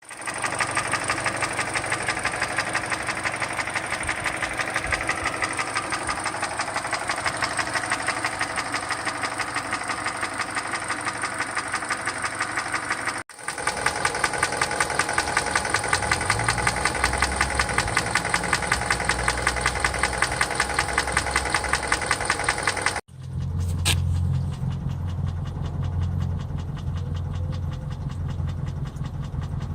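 2013 Hyundai Elantra GT's 1.8-litre Nu four-cylinder engine running with a steady, rhythmic ticking knock, a sign of the design defect the owner blames on the Nu engine. The sound cuts off abruptly twice and resumes, the last part with more low rumble.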